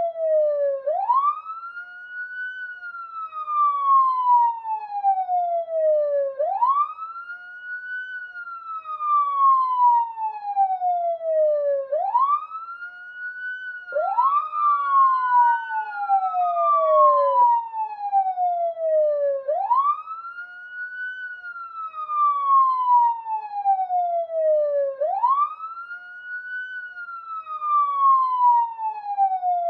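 Police siren wailing in a slow, steady cycle: each wail rises quickly and then falls slowly over about five seconds. About halfway through, a new rise starts before the previous fall has ended, so two wails briefly overlap.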